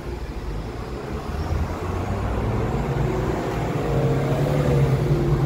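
Road traffic: a motor vehicle's engine running close by, getting louder over the second half.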